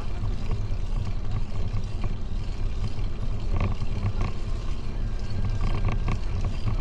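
Steady low rumble of wind buffeting the microphone of a camera on a moving bicycle.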